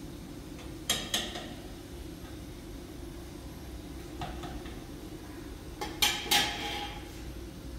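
Dishes and pots knocking and clinking: two clatters about a second in, a fainter knock around four seconds, and three louder clatters around six seconds, each with a short ring, over a steady low background noise.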